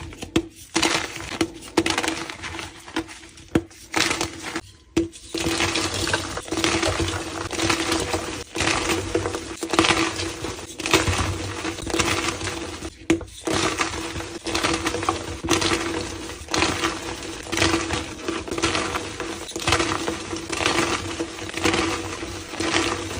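Reformed gym chalk blocks being crushed and crumbled: a dense run of crisp crunches and cracks with a few brief pauses. A faint steady hum runs underneath.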